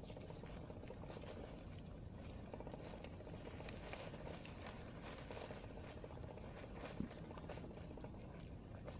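Faint outdoor ambience with a steady high-pitched insect drone. Two short clicks come through, about three and a half and seven seconds in.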